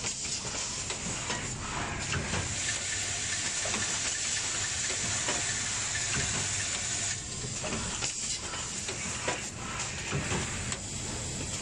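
Automatic stud-welding machine for non-stick pans running: a steady hissing din with a few sharp mechanical clicks, easing slightly about seven seconds in.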